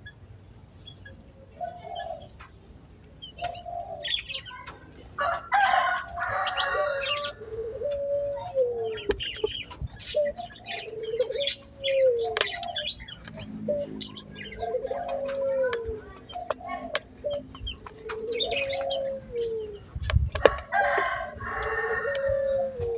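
Aviary birds calling: a rooster crows about five seconds in and again near the end, among repeated short falling calls and sharp chirps from other birds.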